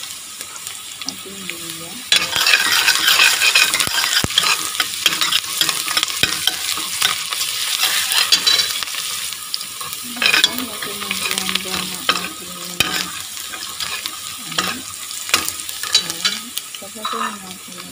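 Chopped onion and garlic sizzling in hot oil in a stainless steel pot, with a spoon stirring and scraping against the pot in many small clicks. The sizzle gets louder about two seconds in.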